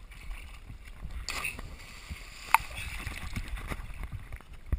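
Water sloshing and lapping around a waterproof action camera held at the river's surface, heard as a low rumble with splashy noise. One sharp click about halfway through.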